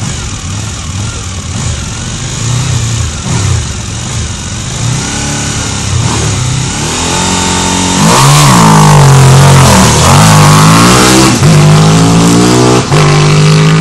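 Racing sidecar's motorcycle engine being revved in short blips at the start line. About eight seconds in it launches at full throttle, loud, its pitch climbing in steps with short dips between them as it pulls away.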